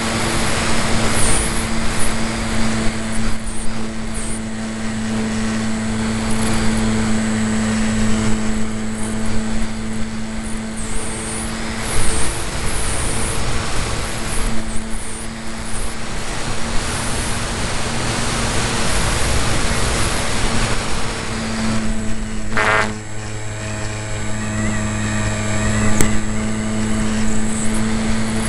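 RC Piper Cub model plane's motor and propeller running at a steady pitch, with rushing air noise over it; the pitch dips briefly about three-quarters of the way through.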